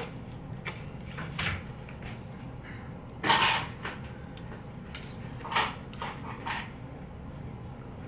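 A few short clatters and scrapes of wooden chopsticks working in a styrofoam takeaway box while picking up sushi, the loudest about three seconds in, over a low room hum.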